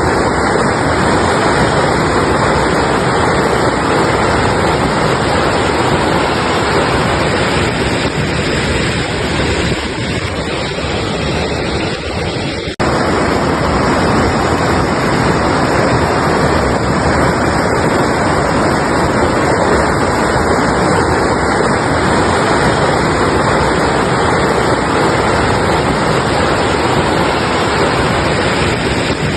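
Mountain river rushing over rocks: a loud, steady roar of flowing water that dips briefly about thirteen seconds in and cuts straight back.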